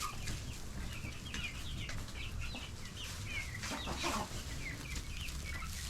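A flock of hens clucking and calling, with many short, high, falling chirps scattered throughout, over a low steady rumble.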